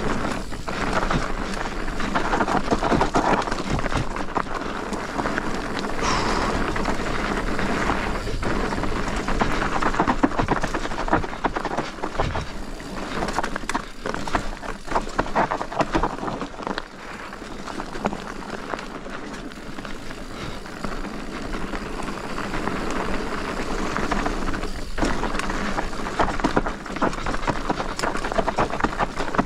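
Commencal Meta TR mountain bike ridden downhill on a dirt trail. The tyres rush and crunch over dirt and stones, and the bike clatters with many small knocks over the bumps.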